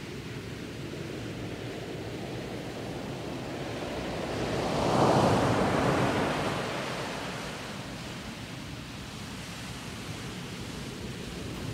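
Stormy-weather ambience: a steady rushing noise of wind and rain that swells into a louder rush about five seconds in, then fades back.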